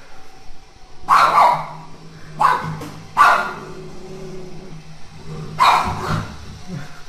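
A dog barking four times at a running robot vacuum cleaner, the robot's steady low hum underneath.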